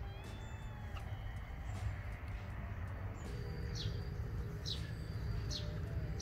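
Birds chirping outdoors, with thin calls in the first second and four short, sharp falling chirps in the second half, over a steady low rumble.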